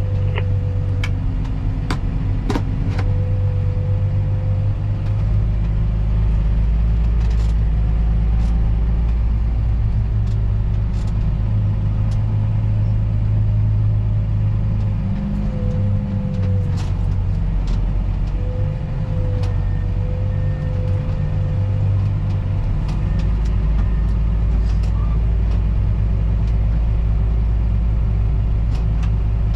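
Heavy earthmoving machine's diesel engine running steadily, with a faint wavering whine and scattered clicks over the rumble.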